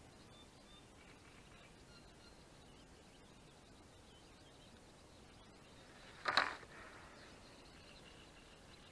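Faint outdoor pond-side ambience with distant birds chirping. About six seconds in it is broken by a single short, loud noise.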